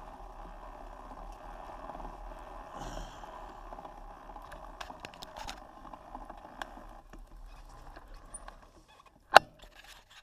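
Fatbike rolling across dry grass, its fat tyres making a steady rolling noise with scattered light clicks, which dies away about seven seconds in as the bike slows to a stop. A single sharp knock near the end is the loudest sound.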